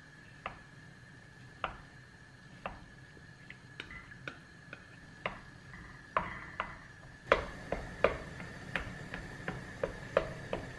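Plastic rice paddle tapping and scraping against an enamelled pot while stirring rice in water, about one knock a second at first, then quicker, louder taps from about six seconds in, over the bubbling of the water as it comes to the boil.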